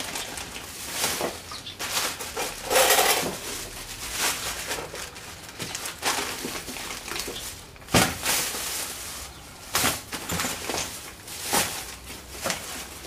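Irregular clinks, knocks and rustling of metal hand tools being handled and rummaged through, with a sharp knock about eight seconds in.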